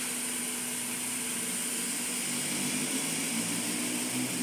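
Car engine idling steadily while the front wheels are steered, with a second, lower hum joining in a little past halfway through.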